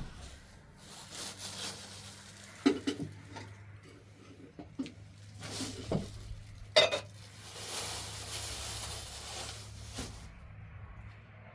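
Metal dishes and utensils clinking and knocking at irregular moments, the sharpest strikes about three and seven seconds in, with a hiss for a few seconds after that.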